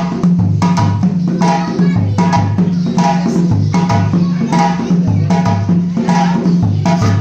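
Loud rhythmic music driven by drums and woodblock-like percussion, with a steady beat over a repeating two-note bass line.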